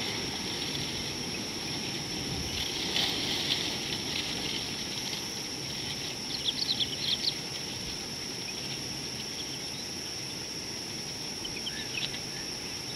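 Outdoor bush ambience with a steady high insect drone, broken by a quick run of short high chirps from a bird about six seconds in and a few fainter chirps near the end.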